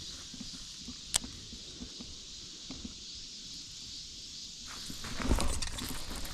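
Steady high-pitched buzz of summer insects, with a single sharp click about a second in. From about five seconds in there is louder rustling and shuffling, like footsteps or tackle being handled.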